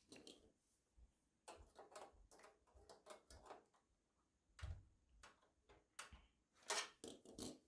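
Faint, irregular clicks and ticks of small metal screws being tightened into a graphics card's mounting bracket in a PC case, with a few louder knocks about halfway and near the end.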